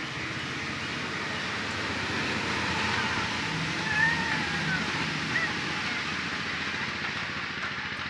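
Newborn puppies whimpering in thin, high, mewing squeaks, a few short cries mostly about three to five seconds in, over a steady hiss.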